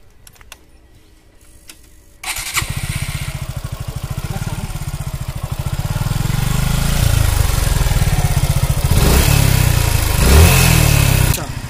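Suzuki Gixxer FI ABS 2020 motorcycle engine starting about two seconds in, running with an even beat, then revved harder before it cuts off near the end. Its extra engine noise was blamed by the mechanic on a dirty air filter rather than the tappets; the owner hears it improved after a new air filter but feels the problem is still there.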